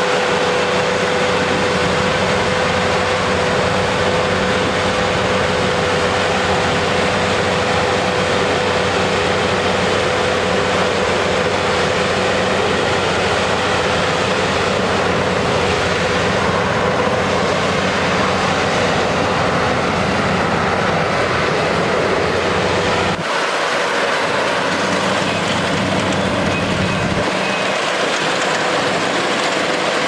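LOVOL RG108 Plus V2.0 crawler-track combine harvester running while it cuts and threshes rice: a steady, dense mechanical din with a constant whine. The deepest rumble drops out from about two-thirds of the way through for a few seconds.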